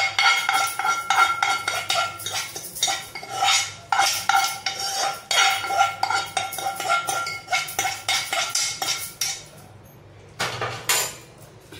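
A metal spoon scraping and clinking against a frying pan and a stainless steel bowl, stroke after stroke with a metallic ring, as the hot tempering is scraped out of the pan into curd batter. The strokes die away about nine and a half seconds in, and a couple more clinks come near the end.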